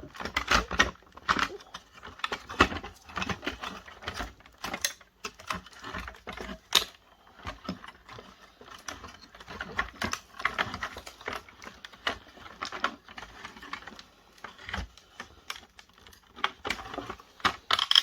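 Irregular small clicks, taps and rattles of hard plastic and metal parts of a video projector being handled, lifted and pulled apart.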